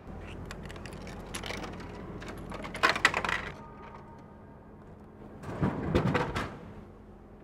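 Shoes stepping on a tiled floor, then clicking and rattling at a drink vending machine as a can is bought. A clattering thud about six seconds in as the can drops into the dispensing tray.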